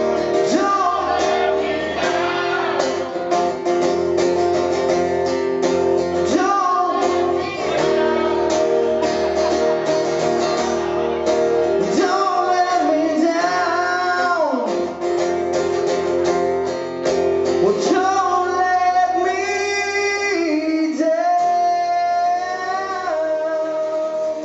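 Live solo acoustic performance: a man singing at the microphone while strumming an acoustic guitar, with long held sung notes in the second half.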